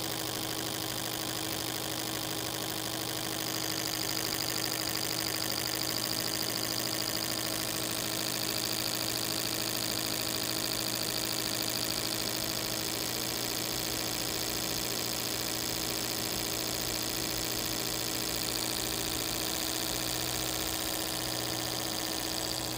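A machine running steadily with a constant hum and an even hiss, unchanging throughout.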